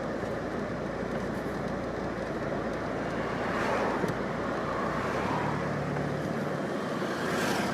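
Street traffic: steady road noise, with vehicles passing about halfway through and again near the end.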